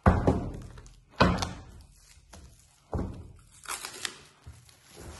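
A thick wooden blank knocking against a wooden workbench three times, the first knock the loudest, then plastic stretch wrap crinkling as it is peeled off the wood.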